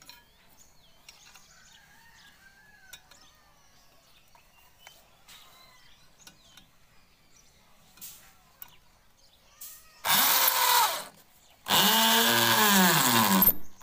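Corded electric drill boring into a concrete wall in two bursts about ten seconds in, the motor's pitch rising and then falling each time. Faint bird calls before it.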